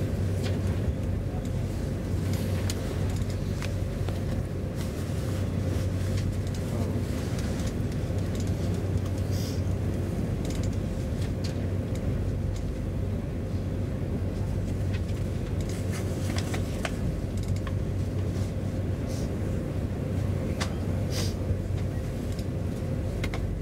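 Steady low hum heard inside an SJ X40 double-deck electric train standing at a platform: its ventilation and onboard electrical equipment running, with a fainter higher tone over the hum and scattered faint clicks.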